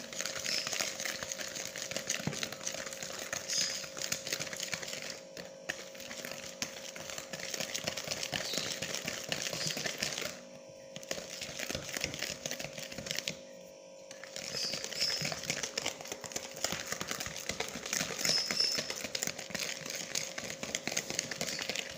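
Wire whisk beating a thick batter in a plastic bowl: fast, dense clicking and scraping of the wires against the bowl, with three brief pauses about five, ten and thirteen seconds in. A steady faint hum runs underneath.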